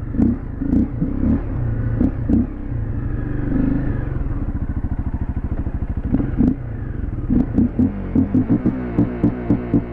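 Fuel-injected dual-sport motorcycle engine running at low trail speed, with the throttle coming on and off in short surges, several a second in the last few seconds. The rider calls it running terribly, the worst-tuned motorcycle he has ridden.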